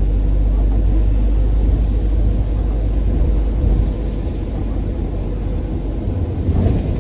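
Interior noise of a double-decker bus in motion: engine and road noise forming a steady low drone, heard from inside the passenger cabin.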